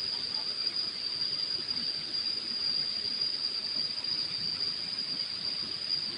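Insects droning: one steady, unbroken high-pitched note over a faint hiss.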